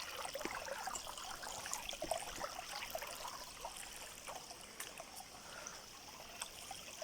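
Shallow stream water trickling over stones: a faint, steady babble with many small irregular plinks and splashes.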